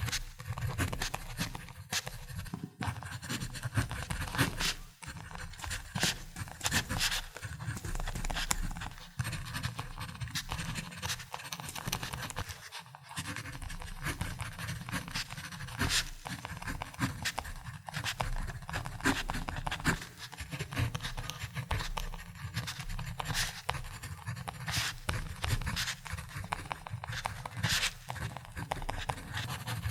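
Ballpoint pen writing on paper: a continuous run of short scratchy strokes, with small taps as the tip lifts and lands.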